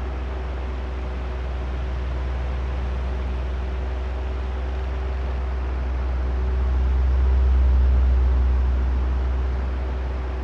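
Oscillating electric fan running steadily: a constant rush of air with a deep low drone and a faint motor hum. The sound swells for a couple of seconds, loudest about three-quarters of the way through, then eases back as the fan head turns past and away.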